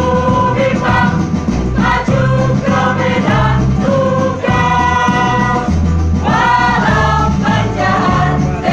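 A choir, mostly women's voices, singing a song together.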